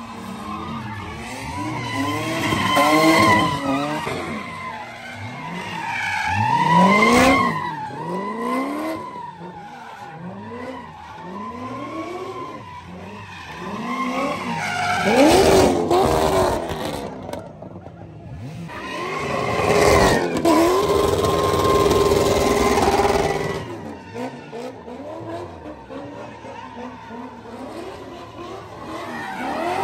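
Cars doing donuts: engines revving up and down over and over with tires screeching. It swells loud four times as a car swings close, and rises again at the end.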